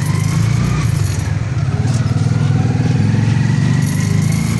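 Motor rickshaw engine running steadily while driving, heard from inside the passenger compartment. Under it, a faint whine rises slowly in pitch.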